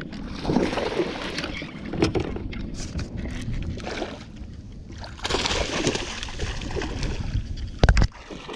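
Water splashing and sloshing at the side of a small jon boat as a hooked bass is fought in, with scattered knocks and one loud thump near the end.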